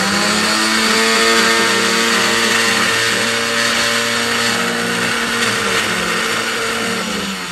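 Countertop electric blender running steadily on a mint, green chilli and yogurt chutney. About seven seconds in it is switched off at the knob and the motor winds down, falling in pitch.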